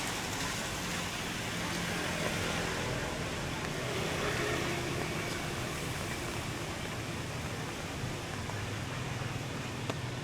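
Rainy street ambience: a steady hiss of rain and wet road with the low hum of passing vehicles.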